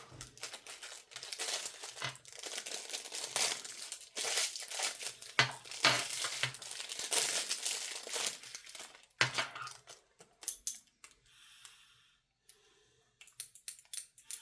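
Plastic packaging crinkling and tearing as a pair of metal carabiners is unwrapped. Near the end come a few sharp metallic clicks, the carabiners' spring gates snapping shut.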